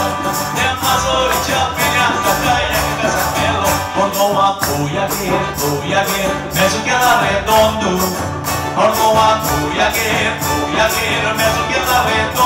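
Live band music: a man singing into a microphone over strummed acoustic guitar and electric bass, with a rattling percussion keeping a quick, steady beat.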